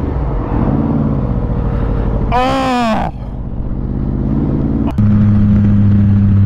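Motorcycle engine running under way, its pitch shifting with the throttle. About two and a half seconds in, a brief, loud sound rises and falls in pitch. The engine then climbs in pitch until an abrupt change, about five seconds in, to a different motorcycle engine running with a steady, deep drone.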